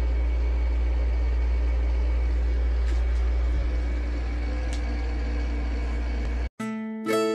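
A steady low mechanical hum runs unchanged. About six and a half seconds in it cuts off abruptly, and plucked-string music like ukulele or guitar begins.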